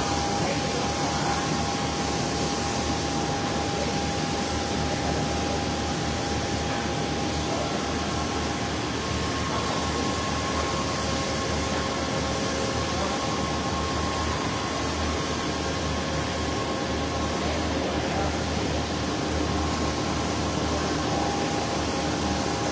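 Steady mechanical air noise, like running ventilation fans, with a few faint steady tones held over it.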